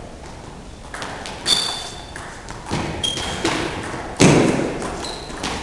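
Table tennis rally: the celluloid ball clicking off bats and the table at irregular intervals, some hits ringing briefly, with one heavy thump about four seconds in that is the loudest sound.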